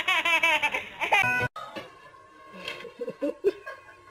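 A baby laughing in quick, repeated giggles, which cut off abruptly about a second and a half in; fainter, indistinct sounds follow.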